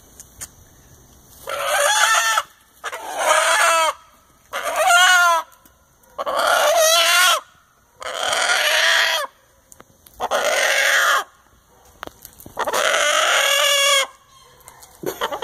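A rooster held in a man's arms, calling loudly seven times, each call about a second long with a short pause between.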